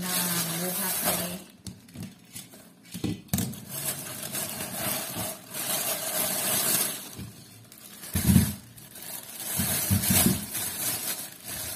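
Plastic shopping bags rustling and crinkling as they are opened and handled, in repeated bursts. A few dull knocks come in between, the loudest about eight seconds in, as kitchenware is set down on the counter.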